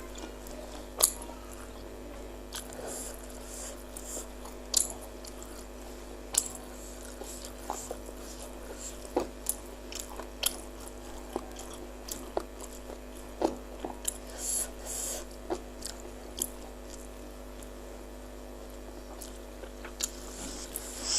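Close-up eating sounds of someone chewing and biting into spicy meatballs (bakso): irregular wet mouth clicks and smacks spaced a second or so apart, with a couple of short slurping hisses.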